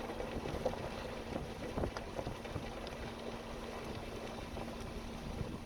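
Inside a moving pickup truck's cab: steady engine hum and road rumble, with a few faint knocks.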